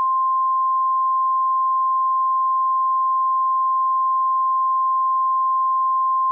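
A steady, unbroken electronic tone of one pitch, near 1 kHz: the alert tone of a mock Emergency Alert System broadcast.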